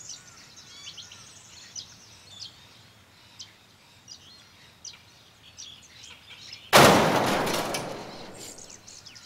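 Small birds chirping faintly, then about seven seconds in a sudden loud crash that fades away over about two seconds: an added strike sound effect marking the hit on the lure.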